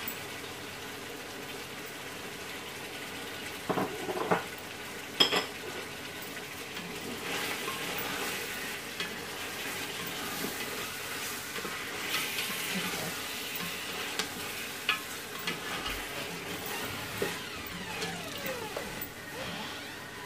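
Mutton and tomatoes sizzling in a large aluminium stock pot while a wooden spoon stirs and scrapes through them. There are a few sharp knocks about four and five seconds in.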